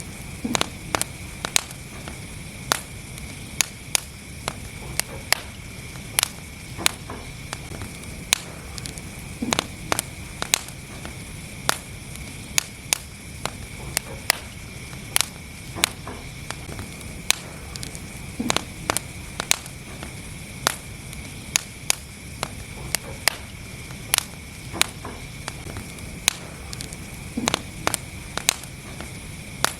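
Wood fire burning in a fireplace: a steady low rumble and hiss under frequent sharp, irregular crackles and pops.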